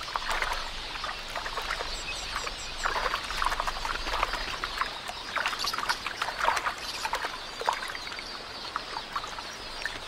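Water splashing and pattering in many irregular strokes as helmeted terrapins thrash at the surface, seizing a bird. A few faint high chirps come about two seconds in.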